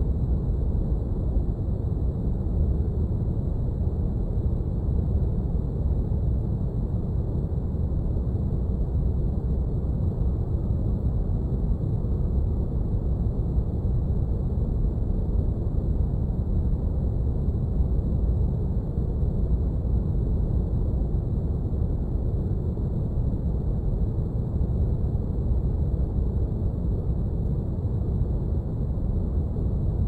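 Spaceship cockpit ambience: a steady deep rumble like brown noise, with faint high steady tones above it.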